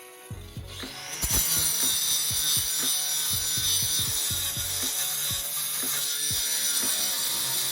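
MIG welding arc from a Vulcan MIG MAX 215 welder running on steel: a dense, irregular crackle that comes up about a second in and then holds steady.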